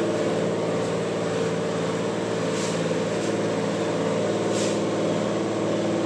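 Steady machine hum made of several even tones, with a few faint short hisses.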